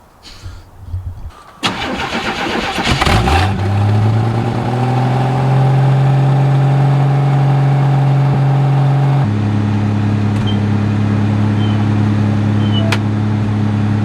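Six-cylinder engine cranking briefly, then catching and revving up before settling into a steady fast idle. The idle note drops abruptly about nine seconds in.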